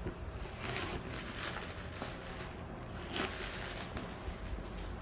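Plastic mailer bag being torn open by hand and peeled off a cardboard box: rustling and crinkling plastic, with a few short tearing strokes.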